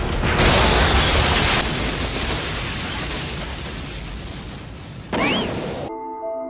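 Anime explosion sound effect of a Rasengan strike landing: a loud blast about half a second in, then a long rumbling fade. About five seconds in a short rising-and-falling tone, then a sudden cut to soft, sustained background music.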